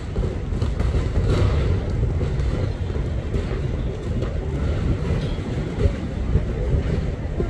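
Train running along the station tracks: a steady low rumble.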